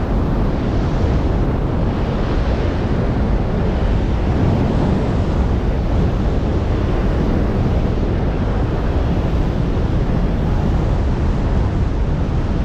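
Wind noise from wingsuit freefall: air rushing past the flyer's camera microphone, a loud, steady rush heaviest in the low rumble.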